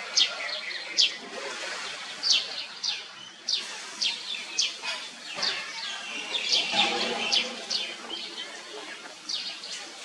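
Small birds chirping: short, high, falling chirps repeated every half second or so, over a steady outdoor background hiss.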